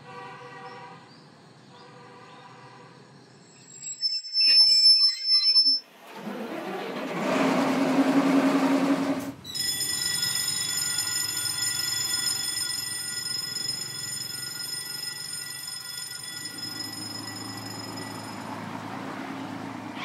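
A train: a few loud clanks about four seconds in, then a rumble, then a long, steady, high-pitched metal squeal from the wheels and brakes that lasts about nine seconds before stopping.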